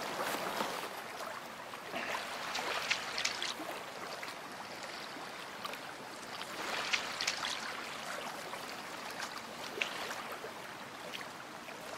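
Small waves lapping on a stony lakeshore: a steady wash of water with a few brief splashes here and there.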